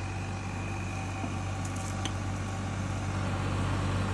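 Diesel tractor engine running steadily with a low hum while it pulls a rotavator through a flooded paddy field, puddling it.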